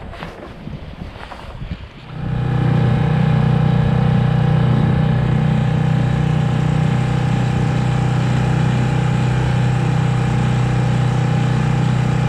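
A small sailing boat's outboard motor running steadily at a constant speed while motoring. It comes in suddenly about two seconds in, after wind and water noise.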